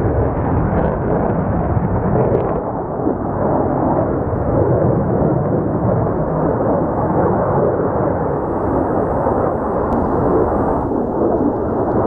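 F-4EJ Phantom's twin J79 turbojets roaring as the jet passes overhead: a loud, steady, rough rumble that holds through the whole pass.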